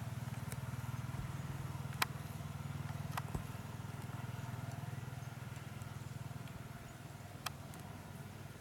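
A motor running steadily with a low, even hum, broken by a few sharp clicks.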